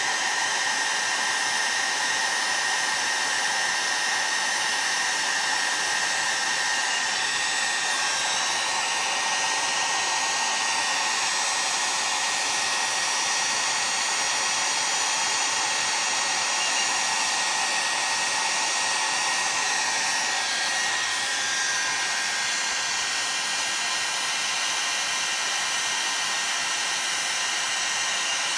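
Heat gun blowing steadily with a fan whine, heating the aluminium chainsaw crankcase around the main bearing bore so it expands to take the tight bearing.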